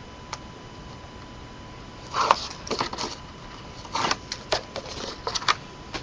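Paper being handled: a quick run of rustles, crackles and sharp clicks from about two seconds in, as the release liner is peeled off pre-applied double-sided tape and a red chipboard panel is laid onto a chipboard wall.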